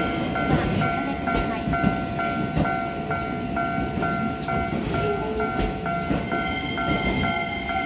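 Japanese level-crossing warning bell ringing, an electronic ding repeating about twice a second, while a train runs over the crossing with a low rumble and sharp wheel clacks.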